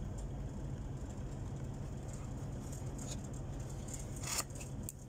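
Handling noise from hands rubbing and gripping fabric close to the microphone: a steady low rumble with faint ticks and rustles, and one sharper rustle about four seconds in.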